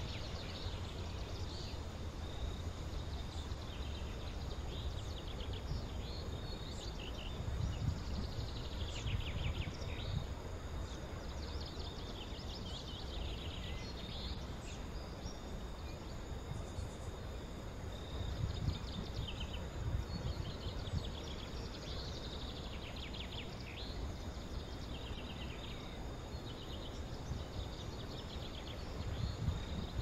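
Small birds chirping and trilling in short repeated phrases over a low, gusting rumble that swells now and then and is the loudest part. A thin steady high tone runs underneath.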